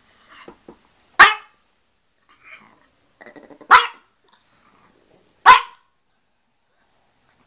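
A Pekingese barking: three single sharp barks about two seconds apart, with faint quieter sounds in between.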